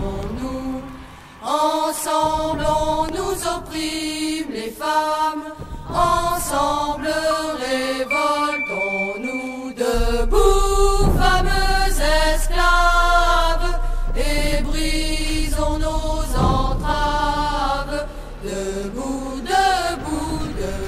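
Background music led by a chant-like vocal melody, with a deep, steady bass coming in about ten seconds in.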